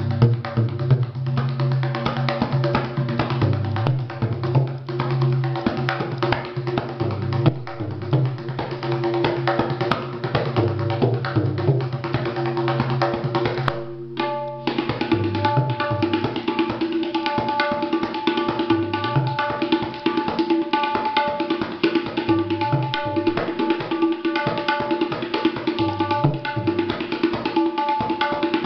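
Tabla playing a fast Ajrara gharana rela: dense, rapid finger strokes across a set of several tuned tabla drums whose heads ring at steady pitches. There is a brief break about halfway through.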